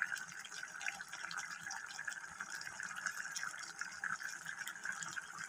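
Chicken and radish curry simmering in a wok over a gas flame: a faint steady hiss with many small bubbling pops.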